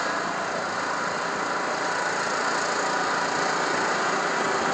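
Riding lawn mower's small engine running steadily with the throttle set to the fast (rabbit) position, pulling a line of seated riders along the road.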